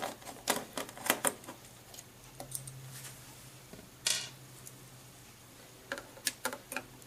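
Screwdriver and handling clicks as a screw is worked out of a Sony Blu-ray player's drive: a run of small sharp clicks and taps in the first second and a half, a brief scrape about four seconds in, and more clicks near the end. A faint low hum runs underneath.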